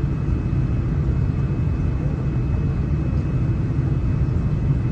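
Cabin noise inside a Boeing 787-9 airliner: a steady, loud rumble of the GEnx engines and airflow, with a thin steady whine above it.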